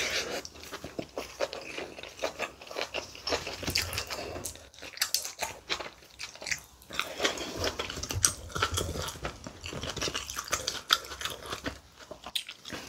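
Close-miked chewing of a mouthful of kimchi and rice: a dense run of small wet clicks and crunches, pausing briefly a few times.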